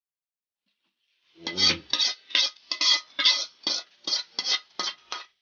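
Metal utensil scraping against a cooking pan in about a dozen quick, even strokes, nearly three a second, starting about a second and a half in: the chicken oil being scooped out of the pan.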